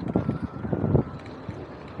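Wind buffeting the microphone in uneven gusts while cycling, over street noise.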